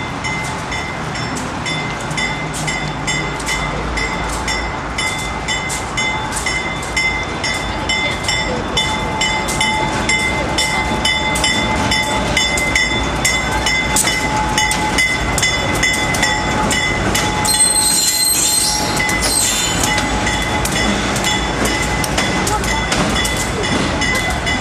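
A pair of Providence & Worcester diesel locomotives running light past the platform, with engine noise, a steady high whine and a regular run of clicks from the wheels over the rail joints. A brief high-pitched squeal comes about three-quarters of the way through.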